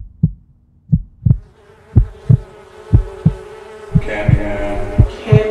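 Heartbeat sound effect: pairs of low lub-dub thumps, about one pair a second. A buzzing, droning music bed swells in beneath it from about a second and a half in and grows fuller after about four seconds.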